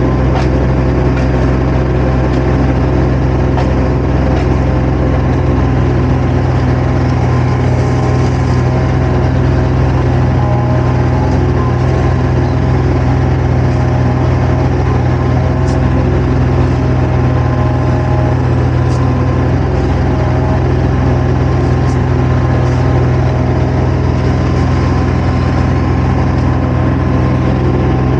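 Diesel engine of a compact construction machine running steadily at a constant speed, a loud, even hum with no change in pitch, heard from the operator's seat.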